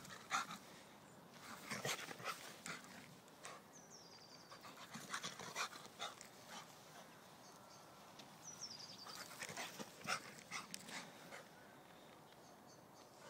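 A Schapendoes dog making short bursts of excited vocal noise in three spells, with two high falling whines between them: the dog protesting at being taken home.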